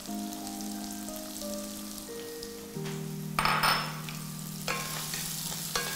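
Chopped shallots sizzling in hot oil in a wok, over background music with held notes. About halfway through, the sizzling briefly gets louder, and a few short scrapes or knocks follow.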